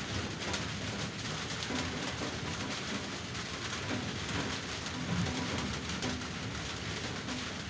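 Heavy rain falling on leaves and grass: a steady hiss dotted with many close drop hits.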